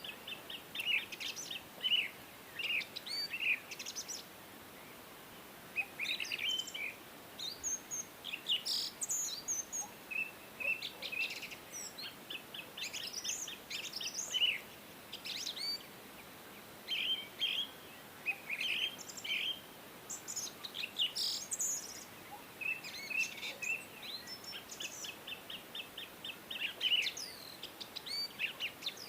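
Songbirds chirping: many short chirps and quick trilled phrases, one after another, over a faint steady hiss.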